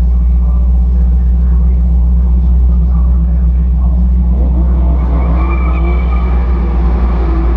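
Sunbeam Tiger's Ford V8 engine running at a steady cruise on track, heard from inside the car as a loud, constant low drone. From about four seconds in, higher wavering sounds rise and fall over the top.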